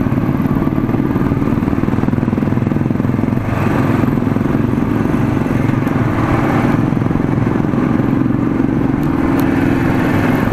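Motorcycle engine running steadily at riding speed, heard close up from the bike itself. Wind and road noise grow stronger about a third of the way in and again near the end.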